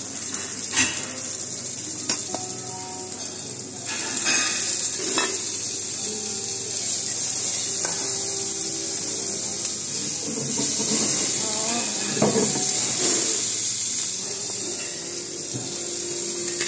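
Diced vegetables frying in a hot oiled pan on a gas range: a steady sizzle that gets louder about four seconds in, with a metal spoon clinking and scraping against the pan now and then as the fillings are stirred.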